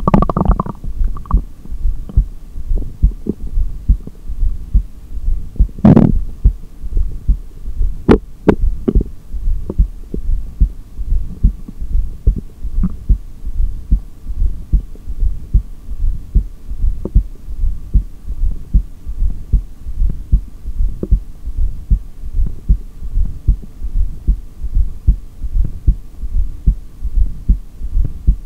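Heartbeat heard through a stethoscope on the chest, beating steadily and evenly during an empty-lungs breathhold, over a faint steady hum. A stomach growl fades out at the very start, and a short louder sound breaks in about six seconds in.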